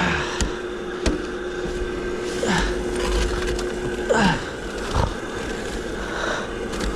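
Rubber boots working through deep snow, with several short falling squeaks and a few sharp knocks over a steady hum that cuts off about four seconds in.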